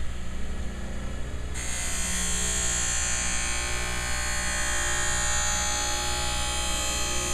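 Skate sharpening machine running with a steady hum; about a second and a half in, a steady high hiss of grinding starts as the steel skate runner is passed along the spinning wheel for the final sharpening pass.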